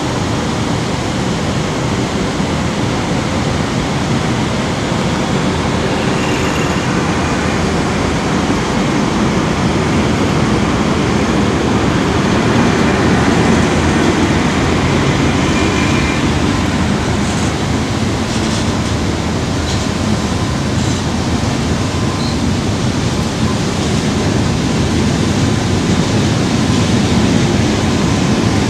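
PKP ET22 electric freight locomotive passing close by, followed by a long string of empty two-tier car-carrier wagons: loud, steady noise of wheels running on the rails.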